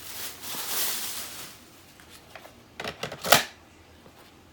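Handling noise from a cordless stick vacuum being taken out and set up: a rustle at first, then a quick cluster of plastic clicks and knocks a little past the middle.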